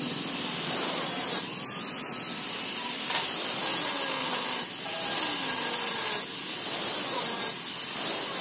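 Handheld angle grinder cutting into a Bajaj auto rickshaw's metal magneto flywheel: a steady, loud grinding hiss with a high whine that drops in pitch several times as the disc is pressed into the metal.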